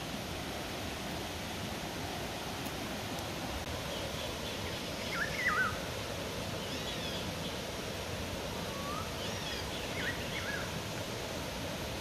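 Steady rush of a fast stream, with a small bird's quick chirping calls in two short bouts, about five seconds in and again around ten seconds.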